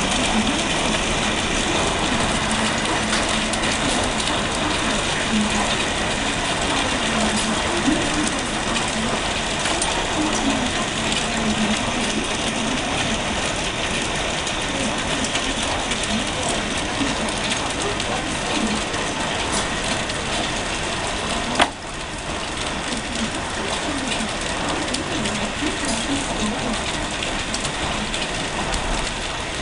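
Hailstones pelting down in a heavy hailstorm, a dense steady clatter of countless small impacts mixed with rain. One sharp click about two-thirds of the way through.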